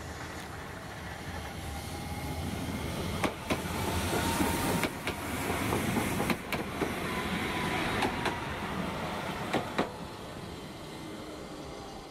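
Hiroshima Electric Railway 5100-series Greenmover Max low-floor articulated tram passing close by: its rolling noise builds to a peak mid-way and fades as it moves off. Sharp clicks, several in quick pairs, come as its wheels go over rail joints, with a faint whine under them.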